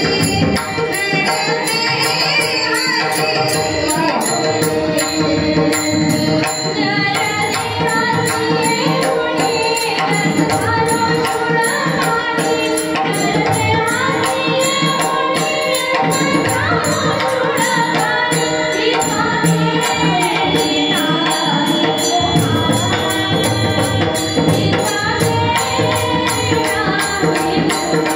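Devotional kirtan being sung, a melodic voice over instrumental accompaniment with a steady percussion beat.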